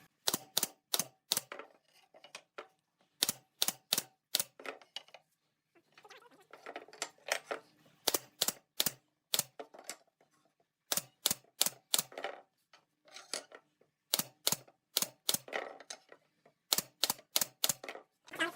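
Sharp knocks on wood in quick runs of four or five, typical of tapping or hammering during woodworking, with softer handling noise between the runs.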